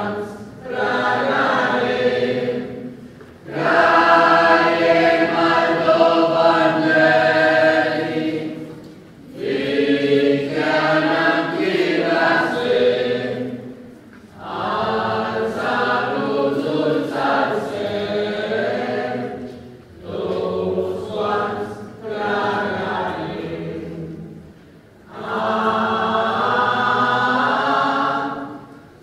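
A church choir singing a communion hymn, in about six phrases of a few seconds each with short breaks between them.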